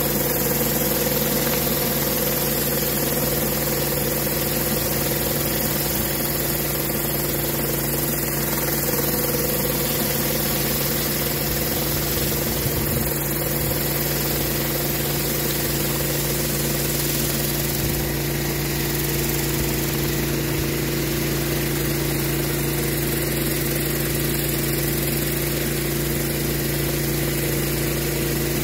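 Pressure washer engine running at a steady pitch, with the hiss of the water jets in the rotary surface cleaner as it sprays the rubber surface.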